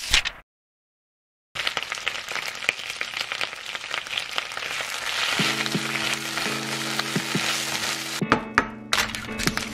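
Spinach leaves sizzling and crackling in a hot frying pan while chopsticks turn them. It starts after about a second and a half of silence, and soft background music joins about halfway through.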